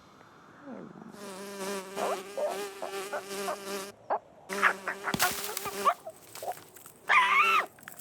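An insect-like buzzing drone in three stretches: about three seconds, then just over a second, then a short one near the end. Wavering higher squeaks ride over it, and a loud warbling squeal near the end is the loudest sound.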